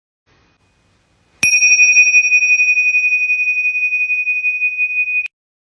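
A single high bell-like ding: struck sharply about a second and a half in, then held as one steady ringing tone with a fast wavering and no fading, cut off abruptly near the end.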